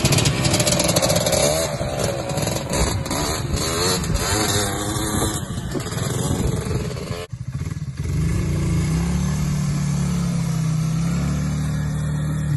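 Quad engines under throttle: a sport quad's engine rising and falling in pitch as it is ridden across a field, then, after a short break about seven seconds in, another ATV's engine holding a steadier note while it is ridden up on its back wheels.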